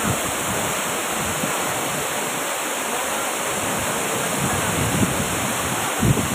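Efrata waterfall's falling water, a steady rush, with a low bump about six seconds in.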